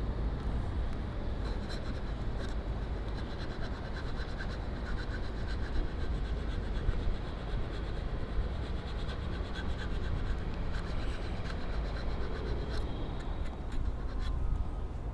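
Steady low rumble with faint scraping and light scattered ticks.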